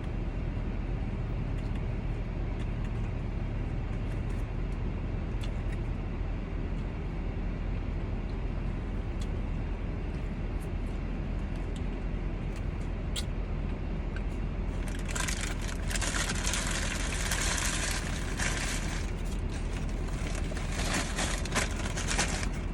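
Steady low rumble of a car running, heard from inside the cabin. About fifteen seconds in, several seconds of crackly rustling are heard over it.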